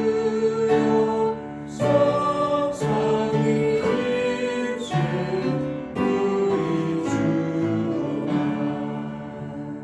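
A church congregation singing a hymn together in held, slow notes, the singing dipping near the end as a line finishes.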